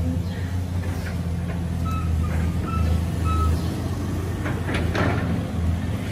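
Caterpillar hydraulic excavator's diesel engine running steadily as it works, with a few short knocks around five seconds in.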